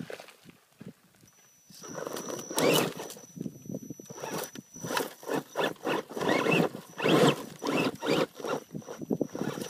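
Axial Wraith RC rock crawler clambering over rock and loose dirt: from about two seconds in, its tyres and chassis scrape and crunch in irregular bursts, over a thin, steady, high whine from the electric drive.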